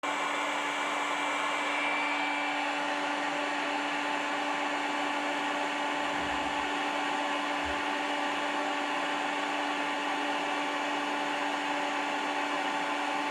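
Heat gun blowing hot air steadily, a fan whine over a rush of air, heating a part so a bearing can be fitted.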